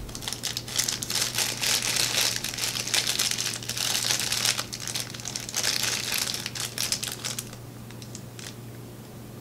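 Foil blind bag crinkling and crackling in the hands as it is worked open, steady for about seven seconds and then quieter.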